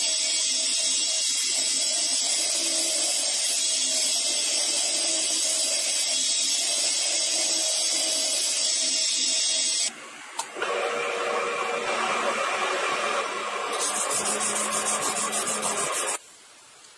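Electric bench grinder running with a steel strip pressed against its spinning wheel: a steady high whine with hiss. After a brief break about ten seconds in, a lower-pitched, coarser machine grinding noise takes over, fluttering quickly near the end, and stops suddenly just before the end.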